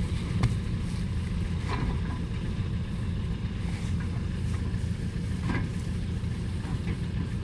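Rice combine harvester running steadily, its engine a constant low rumble, with a few brief clicks.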